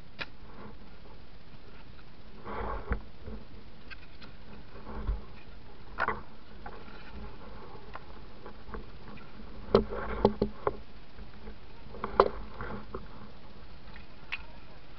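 Scattered clicks, knocks and short rustles of things being handled over a steady hiss. A quick cluster of sharp knocks comes about ten seconds in, and a single sharp knock follows about two seconds later.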